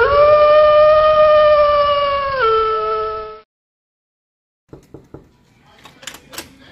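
A single wolf howl that rises into a long steady note, then drops in pitch and stops about three and a half seconds in. After a short silence, a few faint clicks and rustles follow near the end.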